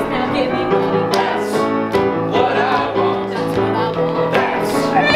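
Music with held chords and a steady beat.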